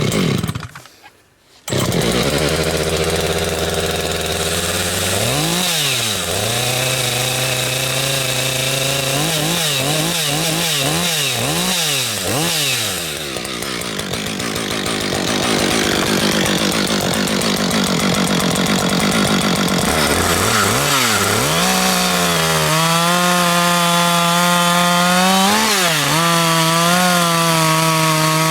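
Husqvarna 562 XP two-stroke chainsaw started with a few short bursts, then revved up and down repeatedly to warm up. It is run at high speed with a harsher, noisier stretch in the middle as the chain cuts through a log.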